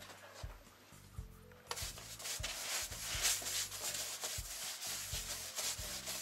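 A wide paintbrush scrubbing latex paint onto rigid foam insulation board: a dry, rasping brushing that begins a little under two seconds in and goes on in continuous back-and-forth strokes.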